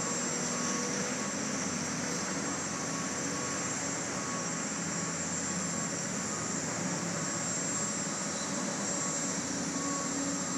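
Heavy excavators' diesel engines running steadily on a construction site, with a faint high beep repeating at an even pace.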